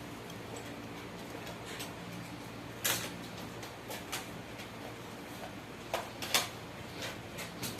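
A few short, sharp clicks and light knocks over a steady low hum, the loudest about three seconds in and a pair close together about six seconds in.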